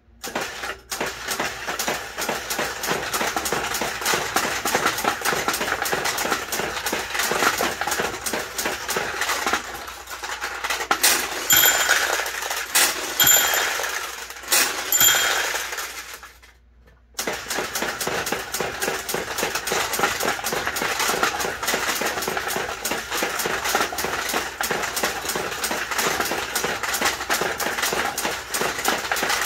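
Mechanical pachinko machine in play: steel balls fired in quick succession and clattering down through the brass pins, a dense rapid clicking and rattling that stops briefly about two-thirds through. Around the middle a small bell rings three times as reward balls drain into the exit ramp.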